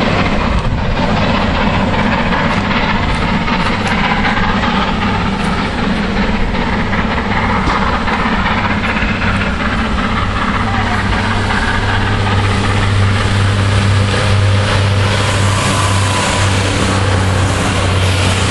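Northern Pacer diesel railbus approaching and running past on the adjacent track, its underfloor diesel engine giving a steady low hum that grows louder over the last several seconds as it nears.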